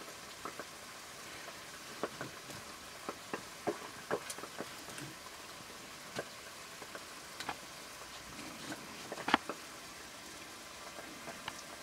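Scattered sharp clicks and crackles over a faint steady hiss, from a wood cooking fire burning under a pot and raw meat being worked against a large knife blade by hand. The sharpest click comes about nine seconds in.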